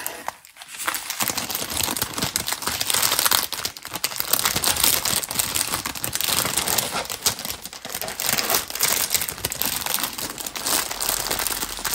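Crinkly plastic bags and packaging being handled, crackling and rustling continuously, starting about a second in.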